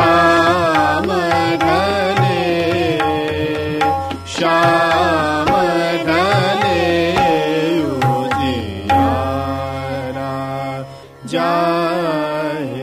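Hindustani classical vocal in Raag Hansdhwani: quick melodic runs (taans) sung over tabla and a steady drone. A short pause comes about four seconds in, a held low note about nine seconds in, then a last phrase that fades out.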